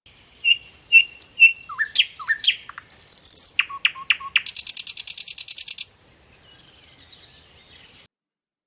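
Songbird calls: a string of short high chirps and quick down-slurred notes, then a fast buzzy trill of about ten notes a second for a second and a half, trailing off into faint twittering.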